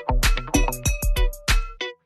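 Upbeat background music with a quick percussive beat, plucked or struck pitched notes and a deep bass pulse.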